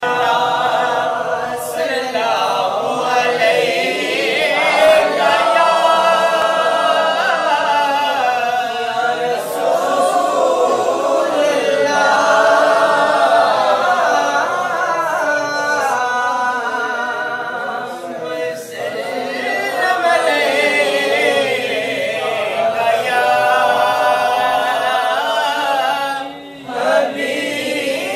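Men's voices singing a naat together without instruments, in long, wavering melodic lines. The singing dips briefly near the end.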